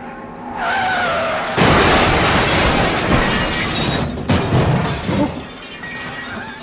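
TYM T574 compact diesel tractor pushing its loader grapple into a tree trunk. The engine picks up, then a sudden loud crunching, scraping noise starts about a second and a half in and eases off in spurts after about four seconds. This is the kind of bulldozer-style push that bends loader hydraulic cylinders.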